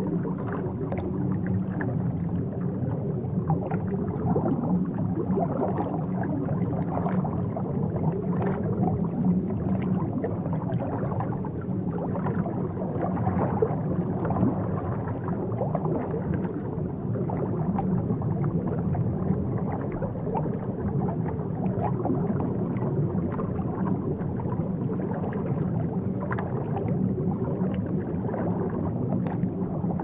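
Steady low underwater rumble of tank water, with small bubbling and gurgling pops all through.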